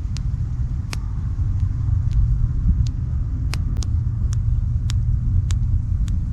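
Sharp thumb pops, about ten irregularly spaced clicks, over a steady low rumble.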